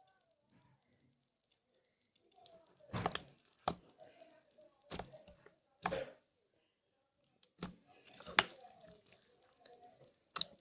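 Slime being squeezed and pressed by hand, giving sharp pops and clicks about seven times, the loudest about eight seconds in.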